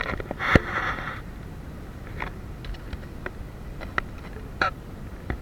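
Scattered knocks and a short scraping rustle on a small wooden boat as a rope is hauled in, over steady background noise. The loudest knock and scrape come about half a second in, with lighter knocks every second or so after.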